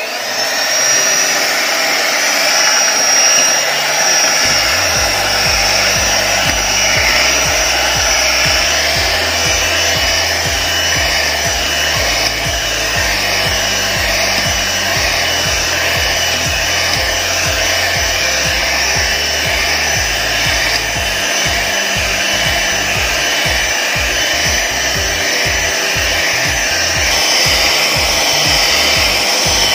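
Electric hand mixer running steadily, its beaters whipping cream in a bowl, with a steady high whine over the motor's whir.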